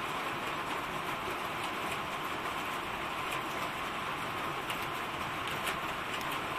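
Steady rain and gusty wind, an even hiss with a few faint ticks in the second half.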